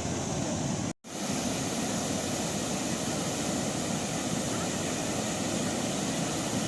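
Steady rush of overflow water pouring through a reservoir's sluice into a canal, broken by a sudden cut about a second in.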